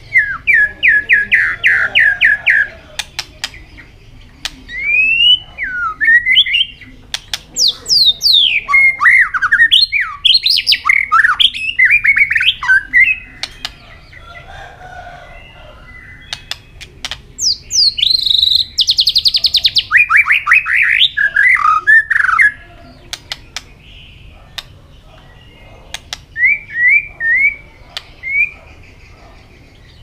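White-rumped shama singing in varied phrases: bursts of rapid repeated notes, whistled glides, and a fast high trill about two-thirds of the way through. The phrases are separated by short pauses, with scattered sharp clicks.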